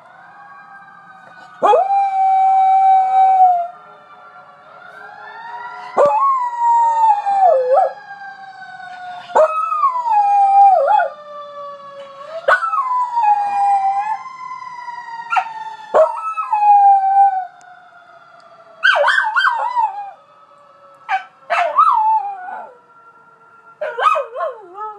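A dog howling along with a fire truck's wailing siren. About eight loud howls, each starting abruptly and sliding down in pitch, over a fainter siren tone that slowly rises and falls throughout.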